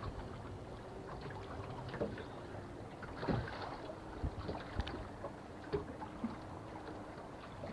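Quiet on a small fishing boat: the bow-mounted electric trolling motor hums faintly on and off, with a few small knocks and clicks scattered through.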